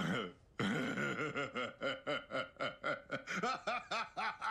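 A man laughing hard: a short burst, a brief pause, then from about half a second in an unbroken string of rhythmic 'ha-ha-ha' pulses, about four a second.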